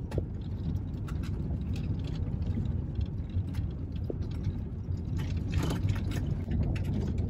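Engine and road noise heard inside the cabin of a 2001 Volkswagen Eurovan Westfalia driving slowly on a paved road: a steady low rumble with scattered light clicks and rattles.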